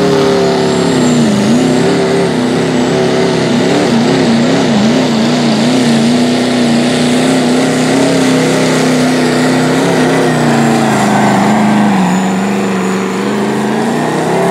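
Diesel pickup engine in a 2.6-inch-turbo pulling class running flat out under full load while dragging a weight transfer sled. Its pitch dips about a second in, wavers up and down for a few seconds, holds steady, then sags lower near the end as the load builds.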